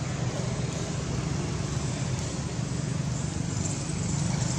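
Steady low rumble of outdoor background noise, even throughout, with no distinct calls or knocks.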